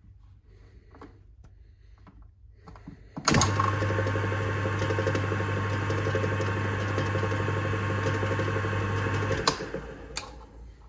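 Atlas 10100 metal lathe switched on about three seconds in: its electric motor and headstock run steadily with a low hum and a faint whine. It is switched off near the end with a click and runs down.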